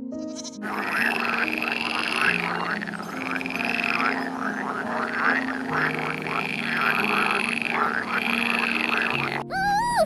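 A dense chorus of many overlapping animal calls, rapidly repeated, over background music. It begins about half a second in and cuts off abruptly near the end.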